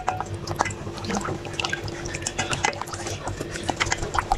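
Wooden spoon stirring thin rice-flour batter in a stainless steel bowl: liquid sloshing, with irregular light clicks and scrapes of the spoon against the bowl.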